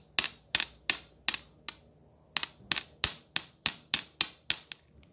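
Sharp plastic clicks from the googly eyes set in a clear green slime as it is squeezed and pressed, about three a second with a short pause about two seconds in.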